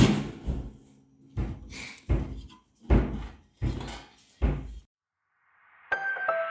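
A run of about seven sharp knocks and thumps over five seconds, from the toaster oven and its metal pans and trays being handled. Background music comes in near the end.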